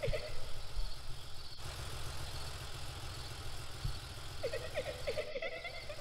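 Cartoon police car's engine running with a steady low hum as it drives slowly along the street, over faint insect chirping. A wavering higher tone sounds right at the start and again from a little past the middle.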